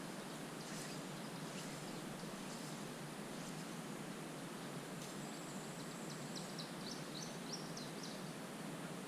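Faint, steady outdoor hiss beside a river. About two-thirds of the way in, a small bird gives a quick run of high chirps.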